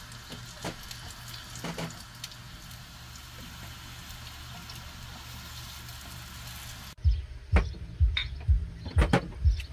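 Triangular filo pastries frying in oil in a pan, a steady sizzle with a few light clicks of metal tongs turning them. About seven seconds in, it cuts abruptly to music with a steady thumping beat.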